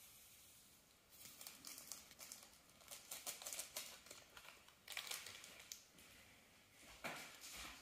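Faint crinkling of plastic wrapping and scattered light clicks of utensils being handled at a table, in a small quiet room.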